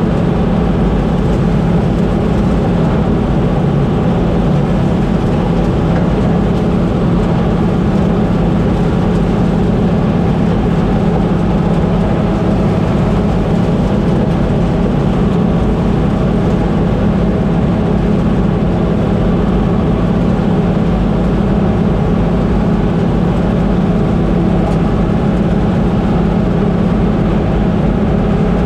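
Combine harvester running steadily during corn harvest, its diesel engine held at a constant speed with a strong low hum.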